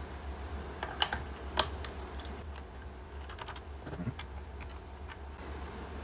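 Scattered small, sharp clicks and taps as a screwdriver works on the screws of a handheld multimeter's plastic case and the case is handled. Under them runs a steady low hum.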